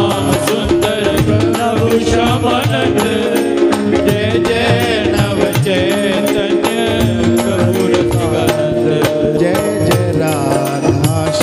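Devotional kirtan music: held drone tones under a wavering melody line, with a drum and small hand cymbals keeping a steady beat.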